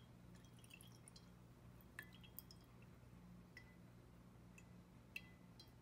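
Faint drips of ethanol falling from a mesh bag of insect specimens into a jar of ethanol: a few scattered small plinks over a low steady hum.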